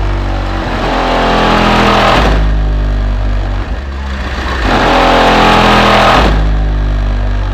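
Music played loud through a car audio system, dominated by deep bass from an Alphard Machete MS-15D4 15-inch dual-voice-coil subwoofer in a 70-litre sealed box, driven by a Calcell amplifier at 2 ohms. The bass notes change every couple of seconds.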